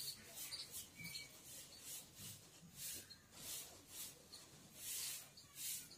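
Faint, soft rustling: short scrapes that come irregularly, about once or twice a second.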